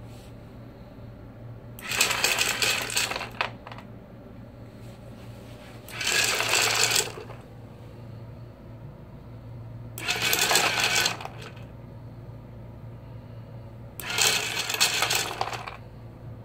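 Small motor of a homemade dog feeder turning the dispenser at the bottom of a clear tube of dog biscuits, in four runs of about a second each, roughly four seconds apart. The hard biscuits rattle and clatter as they tumble out into a wooden tray. A low steady hum runs between the runs.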